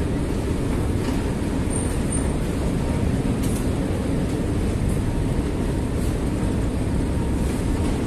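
Escalator running, a steady low mechanical rumble with faint ticks.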